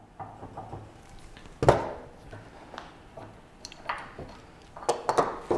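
A plastic quick-grip bar clamp being released and worked off an aluminum bracket on a wooden bench: a few separate knocks and clicks of plastic and aluminum, the loudest about a second and a half in.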